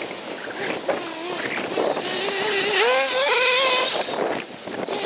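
Off-road RC buggy running on a dirt track, its motor pitch rising and falling with the throttle and loudest about three seconds in.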